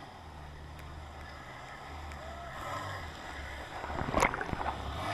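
Low drone of a jet ski's engine heard muffled through a camera housing held underwater, with water sloshing around it. A short loud splash comes about four seconds in.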